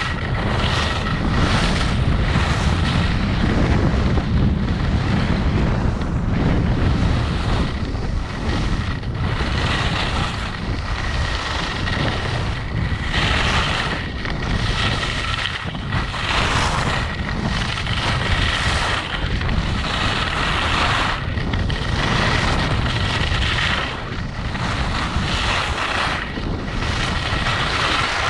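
Wind noise on the microphone with skis scraping and hissing over groomed snow as the skier carves turns downhill, the scrape swelling with each turn every second or two.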